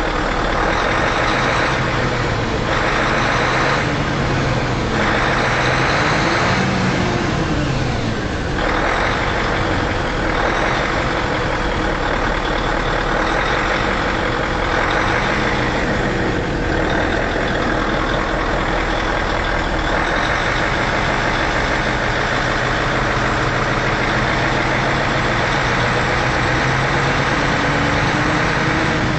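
V8 engine idling steadily, with a couple of light throttle blips that briefly raise and drop its pitch.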